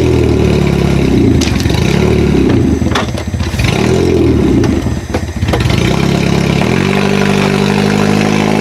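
Honda B20 inline-four engine revving up and down several times, with a few sharp knocks, then dropping to a steady idle about seven seconds in.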